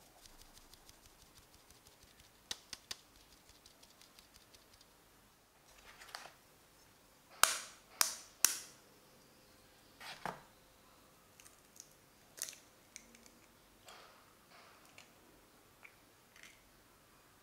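A fine mesh sieve of flour tapped and shaken in rapid light ticks. Then an egg is rapped three times in quick succession to crack its shell, followed by a softer crack as the shell is pulled apart and small clicks of eggshell while the white drips out.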